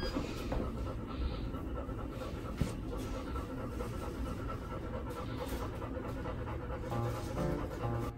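Golden retriever panting steadily.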